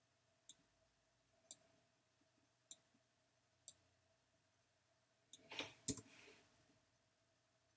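Computer mouse clicking four times, about once a second, then a brief louder clatter of knocks and a short rustle about five and a half seconds in.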